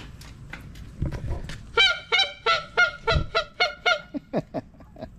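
Goose call blown in a quick run of honks, about seven loud ones in two seconds, then shorter, fainter notes, calling to geese as they fly off.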